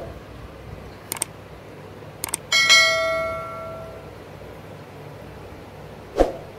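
Subscribe-button sound effect: two pairs of mouse clicks, then a bell ding that rings out and fades over about a second and a half. A short, sharp sound comes near the end.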